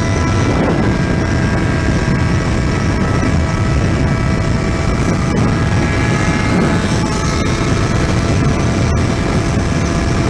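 Yamaha XJ6's inline-four engine running at a steady high speed of about 200 km/h, its even note partly buried under heavy wind rush on the helmet-mounted microphone.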